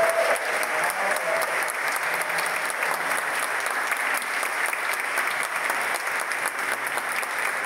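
Large audience applauding, a steady, dense clapping of many hands.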